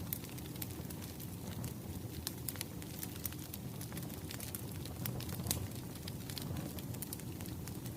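Wood fire crackling: a steady low rumble with frequent sharp pops and snaps.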